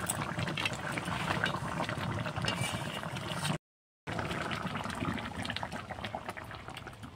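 Curry gravy boiling vigorously in an aluminium kadai, a steady bubbling with many small pops. It breaks off for a moment of silence about halfway through.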